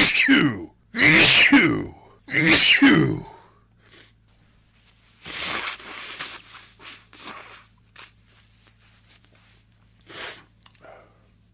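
A man sneezing three times in rapid succession, each sneeze a loud burst falling in pitch, about a second and a half apart, followed by a breathy rush of air and a few fainter sounds. It is an allergic sneezing fit, which he puts down to tree pollen.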